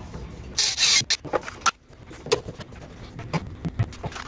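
Rubber fuel hose being handled and fed up along a car's underside: a brief scrape or rustle about half a second in, then scattered light clicks and knocks.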